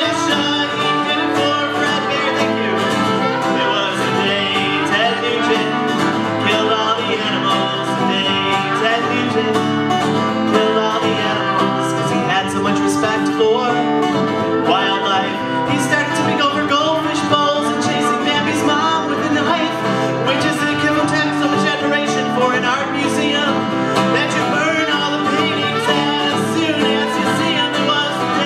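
Fiddle playing a lead melody over a strummed acoustic guitar, played live.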